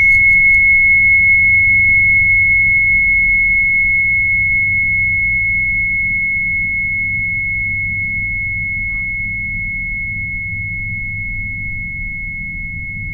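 A chime bar ringing on one clear, high note after a single strike, slowly dying away.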